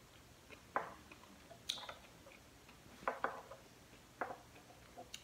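Faint eating sounds: a handful of short clicks and wet smacks, scattered a second or so apart, from chewing sushi and handling wooden chopsticks.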